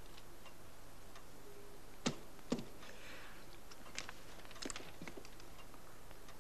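Small knocks and clicks of things being handled on a desk, two sharper knocks about two seconds in, a soft rustle just after, and a few more light clicks later, over quiet room tone.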